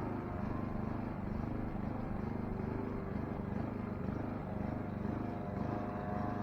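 Saito four-stroke model airplane engine running steadily in flight, a continuous drone that rises and falls gently in pitch as the plane flies; it is running cleanly after a loose fuel-tank hose was fixed.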